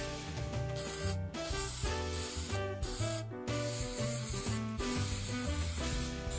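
Aerosol can of 3M spray adhesive (55) hissing in several short sprays, over background music with a steady bass beat.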